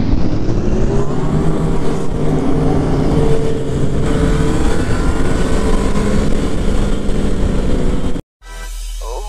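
Sport motorcycle engine heard from the rider's own bike, rising in pitch as it accelerates over the first second, then running at a steady speed. It cuts off abruptly about eight seconds in, and a quieter low hum follows.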